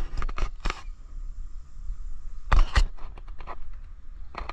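Sharp clicks and knocks as a giant freshwater prawn is landed and handled in a metal boat, with a cluster of louder knocks about two and a half seconds in.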